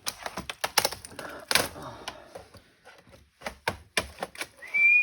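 Irregular sharp plastic clicks and snaps as a laptop keyboard is pried up out of its case. A person starts whistling near the end.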